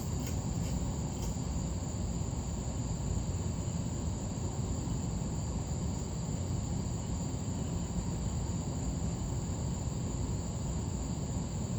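1985 Hunter Original ceiling fan running steadily on medium speed: an even, low whir of the motor and moving air, with a thin steady high tone above it. A few faint clicks come in the first second or so.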